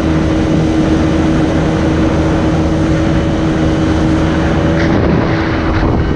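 Jet jon boat's outboard jet motor running steadily at speed, with water rushing past the hull, and a couple of faint knocks near the end.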